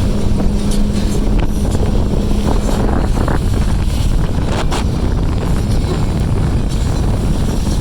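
Motorboat running fast across open water: a steady low engine drone with heavy wind buffeting the microphone. A steady hum fades out about halfway through, and a few sharp knocks come in the second half.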